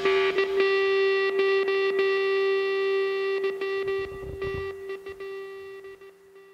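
Closing rock music: a held, distorted electric guitar chord ringing out and fading away.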